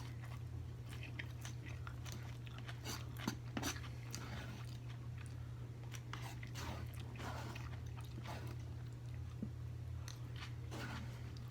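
A person chewing food close to the microphone, with many short crisp crunches and crackles throughout. A steady low hum runs underneath.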